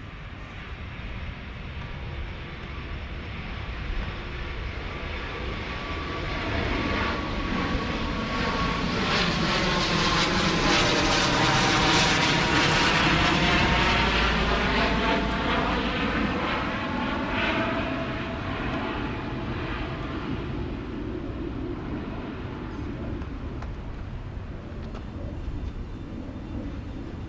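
Fixed-wing airplane flying over. Its engine noise grows louder to a peak about halfway through, with the pitch sweeping as it passes, then fades away.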